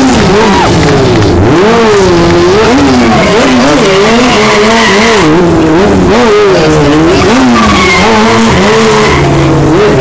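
Sport motorcycle engine revved hard and repeatedly, its pitch swinging up and down every second or so during a smoking rear-tyre burnout and stunt riding, with tyres skidding on the pavement. Very loud.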